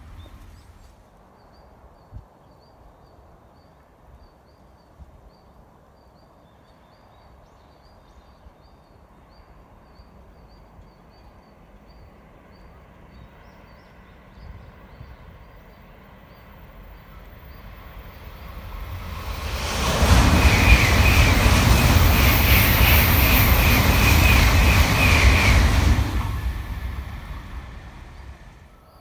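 A Shinkansen bullet train passing at speed. A rush of noise builds about two-thirds of the way in, stays loud for about six seconds, then fades away. Before it, quiet open-air background with faint repeated high chirps.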